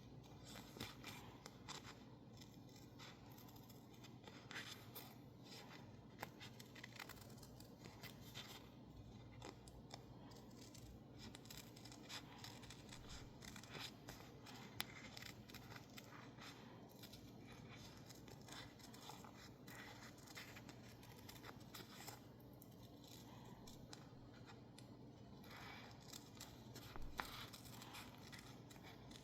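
Scissors snipping through sticker label paper in many small, irregular cuts, quietly.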